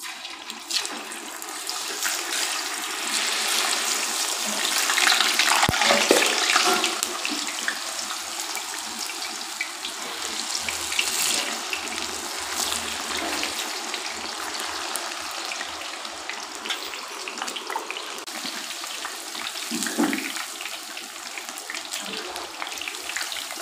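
Hot oil in an aluminium kadai sizzling as handfuls of masala-coated bitter gourd are dropped in to deep-fry. It starts suddenly as the first pieces go in, swells to its loudest about five seconds in as more are added, then carries on as a steady sizzle.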